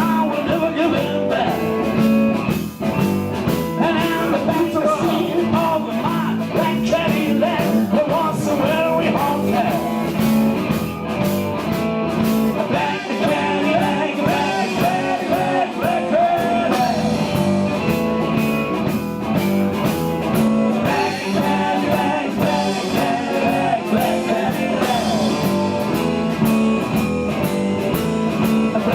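Live blues-rock band playing a jam, guitar lines bending and wavering over a steady drum beat.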